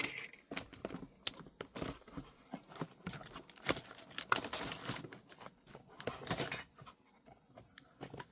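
Handling noise as an object is moved and repositioned by hand: irregular clicks, taps and rustles, busiest in the middle and tailing off near the end.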